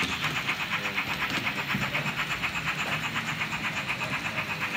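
H0-scale Märklin model of a class 75 tank steam locomotive running with its passenger train, giving a fast, even rhythm of about six beats a second.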